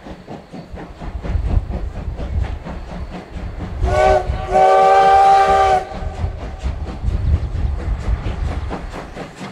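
Steam locomotive CT273 sounding its whistle, a short blast then a longer one just over a second long, over the rumble and rhythmic clatter of the moving train.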